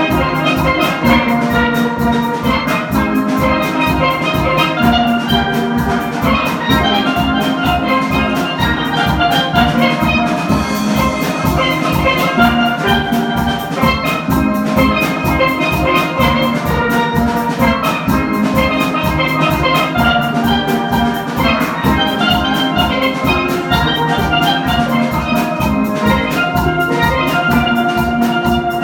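Steel band playing live: many steelpans ringing out a busy melody and chords over a steady, even drum beat.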